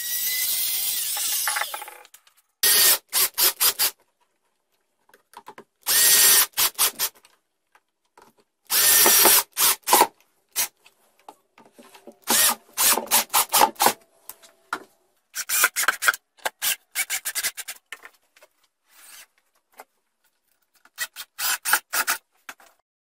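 A trim router runs for the first two seconds and then winds down. After it, an Erbauer cordless drill-driver drives screws in short repeated trigger bursts, in about seven groups with pauses between.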